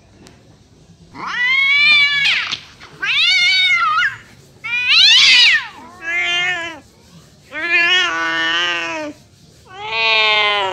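Cat meowing: six long, drawn-out calls of about a second each, every one rising and then falling in pitch, with short pauses between them.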